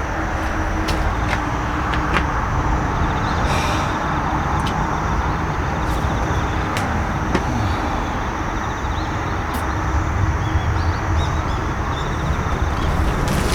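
Steady low outdoor rumble, with a faint steady hum for most of it and a few light clicks.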